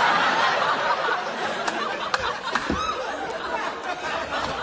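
Studio audience laughing after a punchline, loudest at the start and dying down over the first couple of seconds.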